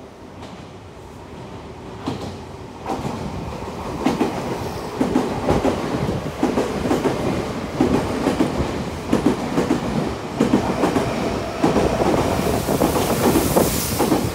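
Semboku Rapid Railway 5000 series electric train passing through a station without stopping, growing louder as it comes in. From about four seconds in, its wheels clatter over the rail joints in a repeating clickety-clack as car after car goes by.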